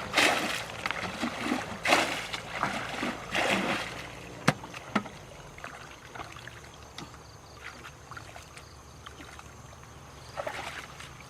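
Water splashing and sloshing in several loud bursts, then two sharp clicks and a quieter stretch of faint trickling and ticks, with another splash near the end.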